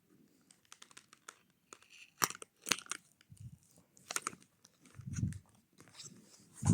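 Cardboard box and its packaging being handled and opened by hand: scattered crinkling and tearing with a couple of sharp clicks about two and a half seconds in, and dull thumps around five seconds in and at the very end.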